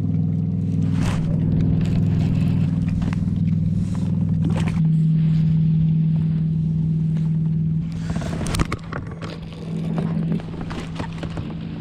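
Background music of sustained low chords that change every few seconds, with a few sharp knocks over it.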